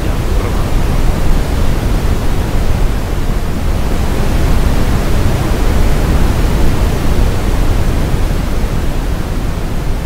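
Brown noise from the SimplyNoise web generator playing as a steady, deep hiss, with its oscillation on, so the volume slowly swells and eases back.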